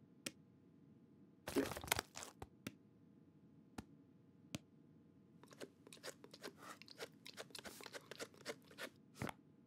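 Cartoon sound effects of a cat crunching and chewing dry food pieces. There is a short louder burst about a second and a half in, then a few separate crunches, then a quick run of crunching from about five and a half seconds in.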